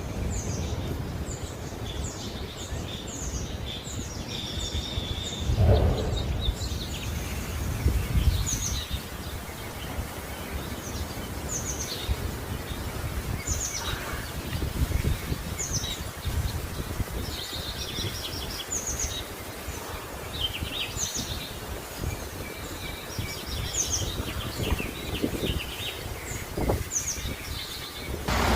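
Birds chirping, many short repeated calls, over a steady low rumble, with two dull thuds about six and eight seconds in.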